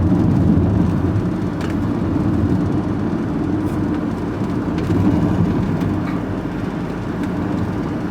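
Engine and road noise of a vehicle being driven, heard from inside the cab: a steady low rumble with a few faint clicks.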